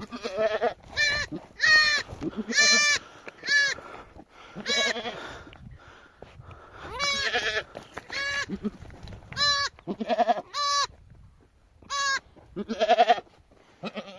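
Sheep bleating over and over, a dozen or so short wavering calls from several animals at different pitches, some overlapping.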